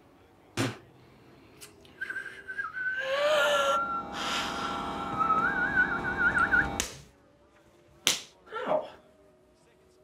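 Whistling that wavers near its end, over a loud rushing noise, with a sharp smack about half a second in and another about eight seconds in.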